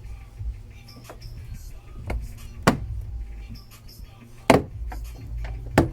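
Plastic retaining clips of a BMW 1 Series door card snapping free as the panel is pried off the door: three sharp snaps in the second half, the last two closer together.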